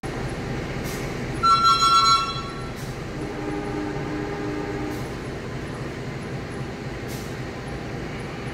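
A short, loud multi-tone train horn blast about a second and a half in, over the steady low rumble of a diesel-hauled fuel-tank freight train standing at the platform. A fainter, lower tone follows for about two seconds.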